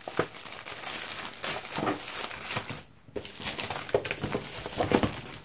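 Clear plastic sheet protector crinkling as hands slide printed papers out of it and handle the sleeve, with paper rustling mixed in. There is a short lull about three seconds in.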